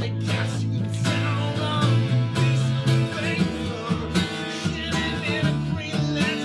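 A man singing over a strummed acoustic guitar, with a second guitar playing along, in a live band performance.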